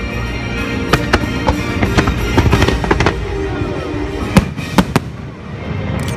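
Aerial fireworks bursting: scattered sharp bangs, then a rapid crackling cluster about two and a half seconds in, and the two loudest reports at about four and a half seconds. The show's musical soundtrack plays underneath.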